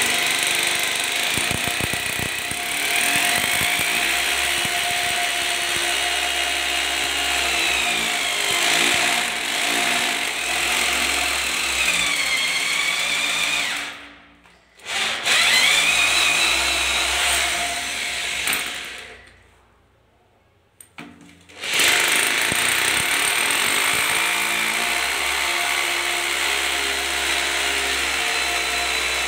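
Electric hammer drill boring mounting holes into a tiled floor, its motor whining and shifting pitch as it bites under load. It stops briefly about halfway through, then stops again for a couple of seconds about two-thirds of the way in before starting up again.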